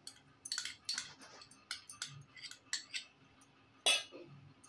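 A steel spoon clinking and tapping against a steel mixing bowl while paste is scooped in: a scattered series of light clinks, the loudest about four seconds in.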